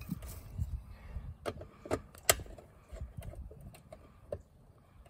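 Scattered sharp clicks and taps of wire and hand tools against the metal terminal lugs of an AC disconnect box as the conductors are worked into place, the loudest click a little past two seconds in, over a low rumble.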